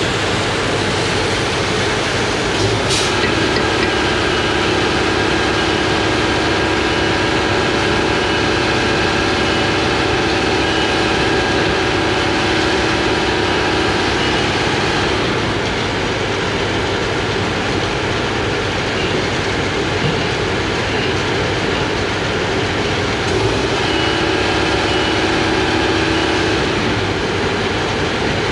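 Engine running steadily under a broad, even rushing noise, with a humming tone that comes in about three seconds in, drops away around fifteen seconds, and returns briefly near the end.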